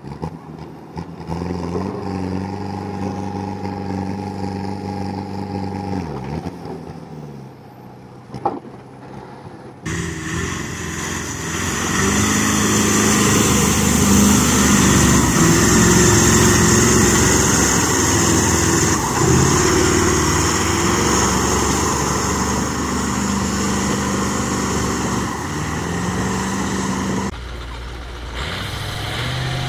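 Heavy truck engines running through several short scenes. First a steady engine note that sags away after about seven seconds. Then, from about ten seconds in and loudest, a truck ploughing through flood water, its engine under a loud rush of splashing spray. Near the end, another truck's engine runs steadily.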